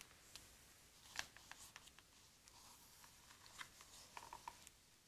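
Near silence with faint handling noise: a few small scattered clicks and rustles, the loudest a little over a second in and a short cluster near the end.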